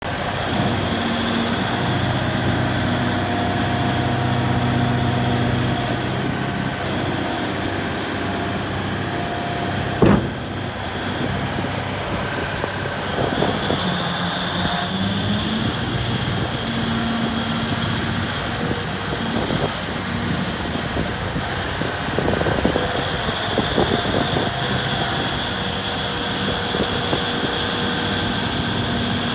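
Hitachi EX2500 hydraulic mining shovel running and working its bucket: steady diesel and hydraulic drone whose pitch rises and falls as the hydraulics take up load. A single sharp knock comes about ten seconds in.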